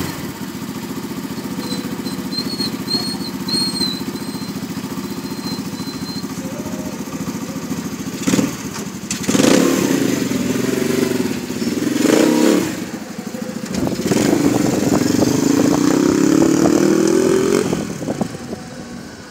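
Homemade minibike's small engine idling, blipped in several short revs, then held through a long rising rev as the bike pulls away, fading with distance near the end.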